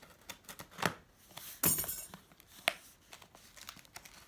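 Scissors and hands working at a taped cardboard parcel: scattered sharp clicks and knocks, with a brief loud rasping rip about a second and a half in.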